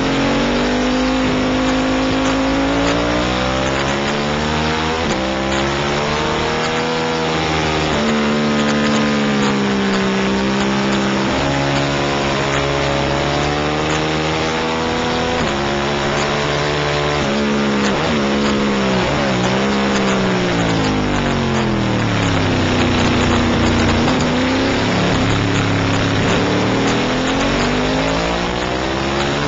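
Racing motorcycle engine heard from a camera mounted on the bike, revving up and dropping back over and over as the rider shifts gears and brakes for corners, with quick downshifts a little past halfway. A heavy rush of wind runs under the engine throughout.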